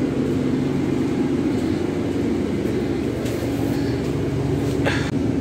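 Bus engine running, heard from inside the passenger cabin as a steady low drone with a hum. A brief sharp noise about five seconds in.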